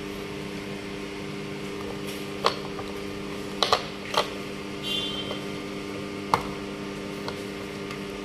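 A few sharp plastic clicks and taps as a small GoPro mount is handled and lifted out of the case's plastic tray, over a steady low hum.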